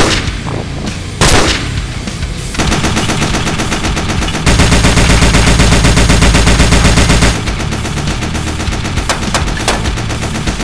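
Dubbed machine-gun sound effect firing rapid automatic bursts, loudest and densest in the middle, over heavy metal music, with two loud hits at the very start.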